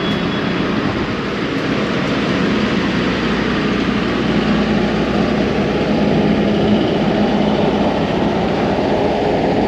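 Steady city street traffic noise, with the low, even hum of an engine running through most of it that fades after about seven seconds.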